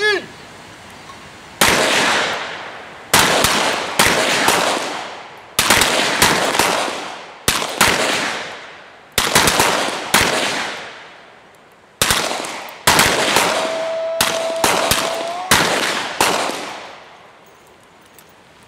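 Volleys of revolver shots from a line of shooters firing large-frame revolvers together. Shots come in irregular, overlapping clusters from about a second and a half in until near the end, each report with a long echoing tail. A short pitched chirp sounds right at the start.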